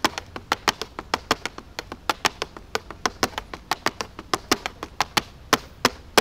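Rapid, dry percussive tapping, roughly five sharp strikes a second in an uneven rhythm with some louder accents.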